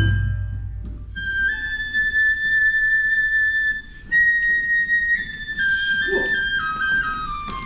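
Japanese bamboo transverse flute (shinobue) of the Awa Odori accompaniment playing alone: a long high held note, then a run of notes stepping down in pitch near the end.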